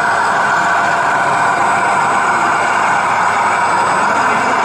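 Radio-controlled model tractor running with a steady, unchanging engine-like drone.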